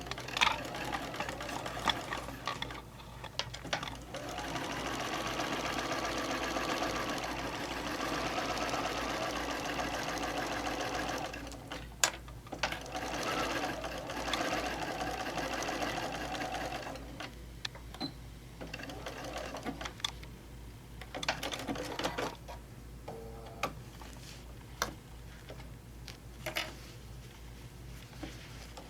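Sewing machine stitching a seam through fabric and foam, running steadily for most of the first half with a short break about twelve seconds in. In the last third it goes quieter, with scattered clicks.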